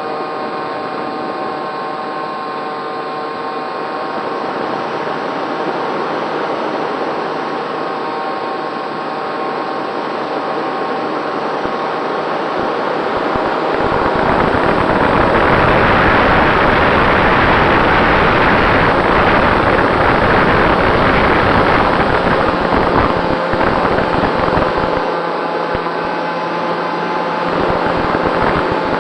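Racerstar BR2208 brushless electric motor of a SkySurfer foam RC plane running at a steady pitch in flight, with wind noise over the microphone that grows louder about halfway through and eases toward the end.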